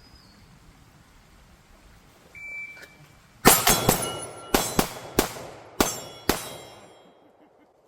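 A shot-timer beep, then a rapid string of pistol shots over about three seconds, with steel targets ringing from the hits.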